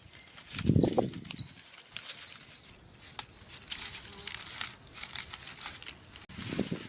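A bird calling a rapid run of short, repeated high chirps, about four a second, that grows fainter after the first few seconds and returns near the end. There is a brief low rustle near the start.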